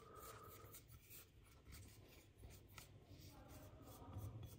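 Faint, soft scraping of a silicone spatula against a glass bowl as cornflour is scraped out into another glass bowl, with a few light ticks.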